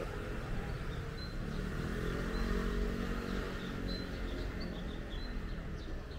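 Street traffic going by, with one vehicle passing loudest about two to three seconds in, and small birds chirping in short high notes over it.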